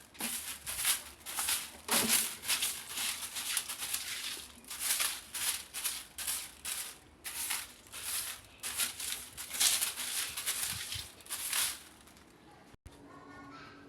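Irregular rattling, scraping strokes, several a second, that stop about twelve seconds in.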